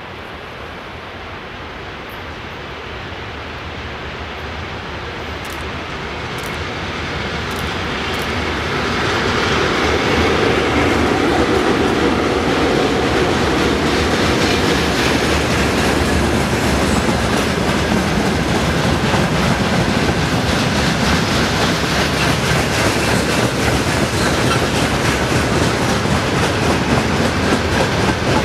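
Freight train hauled by a two-section electric locomotive approaching and passing, growing louder over the first ten seconds, then its long string of wagons rolling past steadily.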